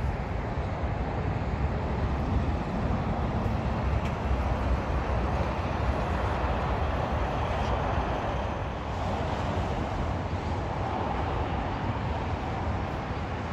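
Steady outdoor rumble of road traffic mixed with wind on the microphone, with no distinct train horn or passing wheels.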